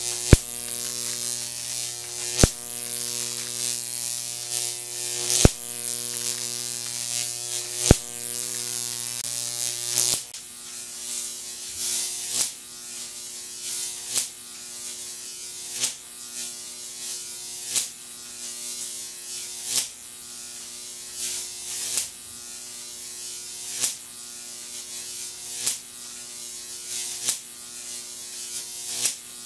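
Jacob's ladder arc from a 15,000-volt neon sign transformer buzzing steadily between copper-rod electrodes. A sharp pop comes every two seconds or so as the arc re-strikes at the bottom of the rods. About ten seconds in the buzz drops in level and the pops come slightly more often.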